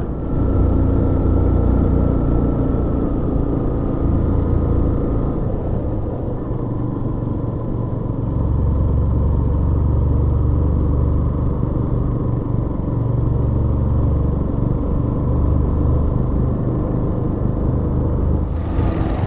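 A road vehicle's engine and road noise while driving: a steady low rumble with a faint hum over it that fades about five seconds in.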